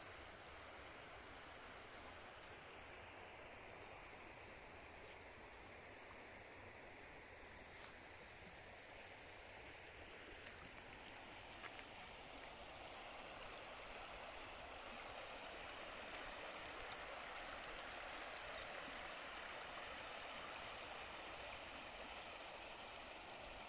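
Steady rush of a shallow stream flowing over stones, with faint, high bird chirps now and then.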